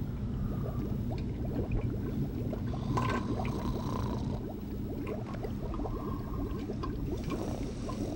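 Liquid gurgling and bubbling steadily while a glass flask of potion is gulped down, over a low steady hum.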